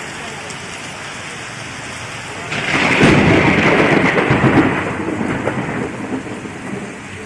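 Heavy rain falling steadily, then a loud clap of thunder breaks in a couple of seconds in and rumbles on, slowly dying away over several seconds.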